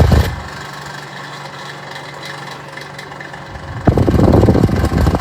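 Electric fan running on its medium setting with a steady low motor hum. A loud low rumble is there at the very start and comes back after a click about four seconds in. On a fan fresh out of the box, the owner takes this medium-speed noise for a sign that it is broken and about to stop.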